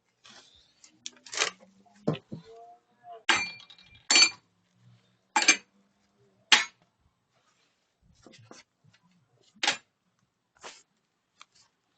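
Metal tools or parts being handled and set down: a run of separate sharp clinks and clanks, about eight loud ones spaced irregularly over the several seconds.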